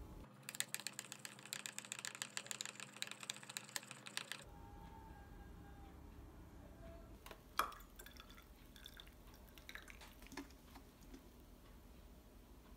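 Kitchen handling sounds while black misutgaru grain powder is mixed with milk in a bottle. A rapid, even pattering lasts about four seconds, followed by scattered soft clicks and taps, with one sharp click about halfway through.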